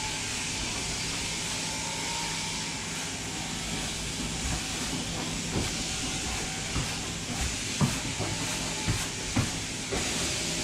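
Electric sheep-shearing handpiece running with a steady hiss, and a few sharp knocks in the last few seconds.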